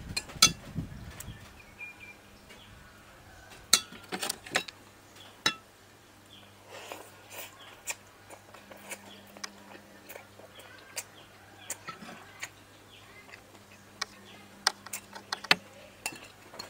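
Metal spoon clinking and scraping against a ceramic plate as boiled balut duck eggs are scooped up, in short sharp taps, with eating and chewing mouth sounds in between.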